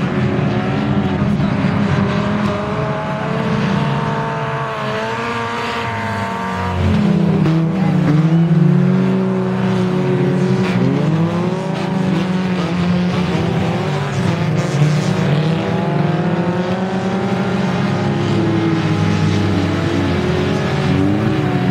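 Several race car engines revving hard at once, their pitch climbing and dropping with gear changes and throttle. They get louder about seven seconds in.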